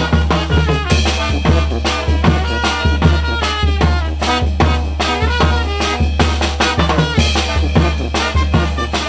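A band playing an upbeat song: drums keep a steady beat over a deep bass line, with a melody above.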